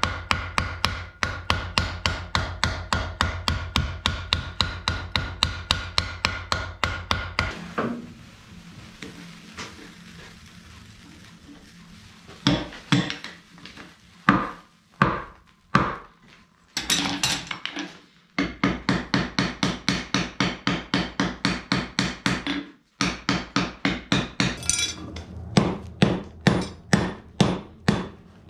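Hand hammer striking red-hot bloomery iron on an anvil in fast, even blows of about four a second, with a ringing tone from the anvil. The blows stop for a few seconds near the middle, come back as a few single strikes, then pick up again in fast runs.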